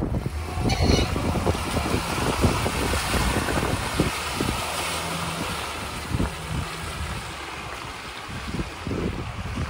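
Audi A6 2.8 Quattro's V6 petrol engine working under load as the car drives through mud and puddles, its tyres splashing through water, with wind buffeting the microphone. The sound gradually fades as the car pulls away.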